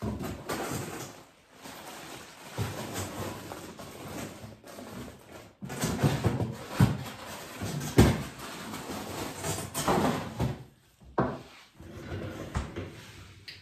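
Groceries being handled and put away: rustling of bags and packaging with a series of knocks and thuds, the sharpest about eight seconds in.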